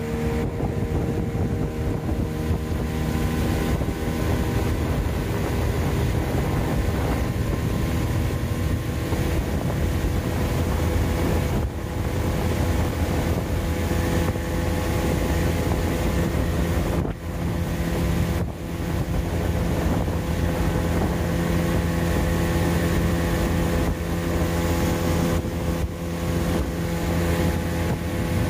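A small river boat's motor running steadily at cruising speed, a constant engine drone with wind buffeting the microphone.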